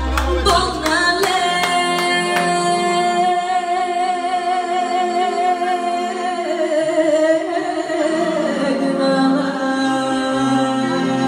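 A woman singing a slow Thracian folk song into a microphone, holding long notes with vibrato. A few sharp clicks sound in the first two seconds.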